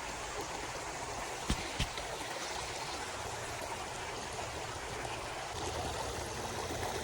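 Creek water running steadily, with two brief sharp clicks close together about a second and a half in.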